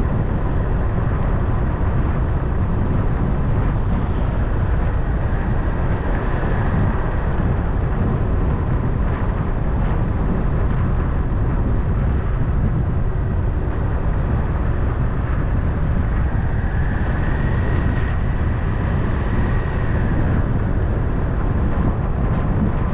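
Car driving at road speed: a steady, loud rumble of tyre and wind noise, heaviest in the low end, with no change through the drive.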